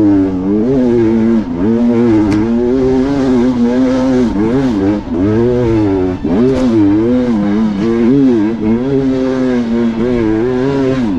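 Off-road vehicle engine running hard, its pitch rising and falling about once a second as the throttle is worked on and off.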